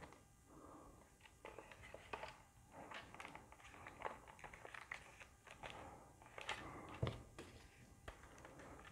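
Faint scattered plastic clicks and knocks as a Nerf Ultra dart blaster is handled and loaded with darts, with a sharper click about seven seconds in.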